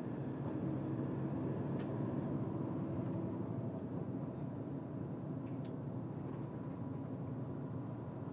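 Steady road and engine noise heard from inside a moving car: an even, low rumble.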